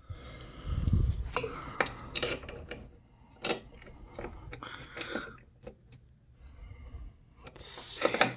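Scattered light clicks and knocks of hand work on a snowmobile's metal chassis while a skid bolt is fitted, with a low rumble about a second in and a louder rustle near the end.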